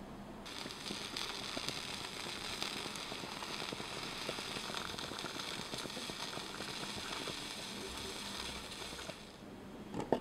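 Sauerkraut broth simmering in a miniature copper hotpot, a dense steady crackle and hiss that cuts in just after the start and stops about a second before the end. At the very end come a couple of sharp knocks as a small plate is set down on a wooden table.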